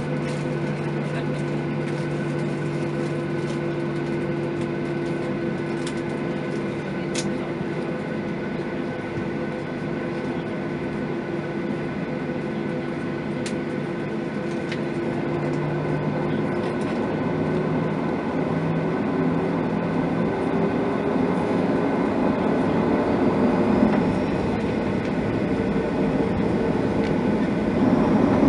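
Boeing 737-900ER's CFM56-7B turbofan engines heard from inside the cabin over the wing, a steady hum with a rumble as the jet taxis. From about halfway the engine tone climbs slowly and the sound grows louder as power comes up, swelling sharply near the end as thrust is added for take-off.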